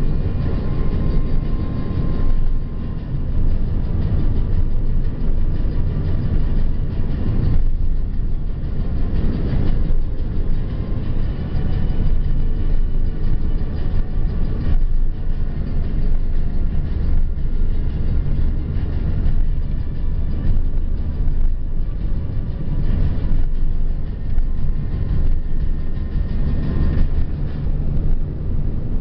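Steady low rumble of a car driving on the highway, engine and road noise.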